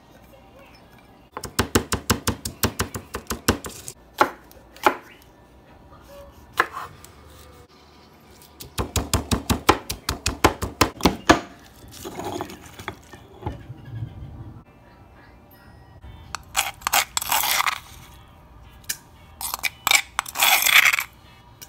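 Granite mortar and stone pestle pounding garlic and green chili: two runs of rapid strikes with a few single knocks between them. Later the pounding gives way to scraping, with a metal utensil rasping the paste against the stone.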